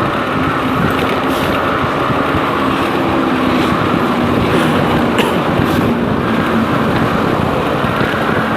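Motorcycle riding at speed: steady wind rush over the microphone with a low engine drone underneath.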